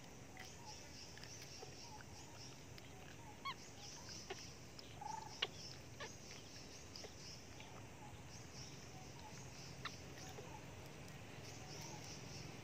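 Faint animal calls: short, high chirps repeating, with a few lower squeaks and some sharp clicks.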